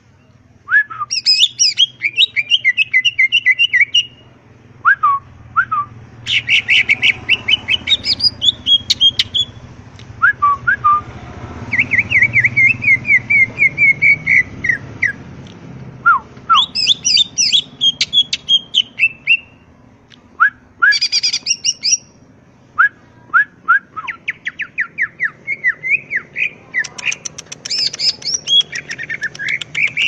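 Cucak ijo (green leafbird) singing in full voice: phrase after phrase of fast chirps and trills, with runs of rapid clicking notes and short pauses between phrases.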